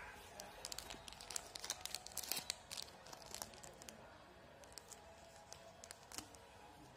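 Metallised plastic wrapper of a Yupi Choco Glee sweet being torn open and crinkled: a dense crackling for the first three seconds or so, then scattered crinkles.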